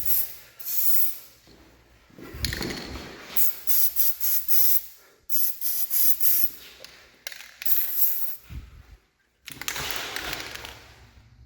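Aerosol can of garage door lubricant sprayed onto the door's rollers and hinges in a series of short hissing bursts, with one longer spray near the end.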